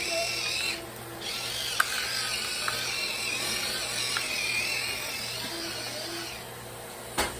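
Electric pepper grinder grinding black pepper: a short burst, a brief stop, then a longer run of about five seconds with a wavering high motor whine. A sharp click near the end.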